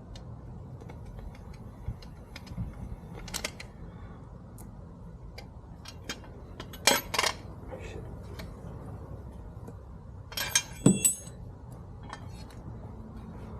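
Small metal parts clinking and clicking as the short shifter's bolts and plate are handled and fitted by hand, over a steady low hum. Two louder bursts of clinks come about seven and eleven seconds in, the second ringing briefly.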